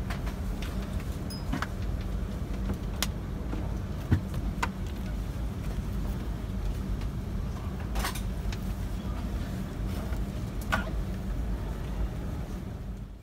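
Steady low hum inside a parked airliner's cabin, with a faint steady tone, broken by a few sharp clicks and knocks from overhead bins and luggage as passengers stand up to leave.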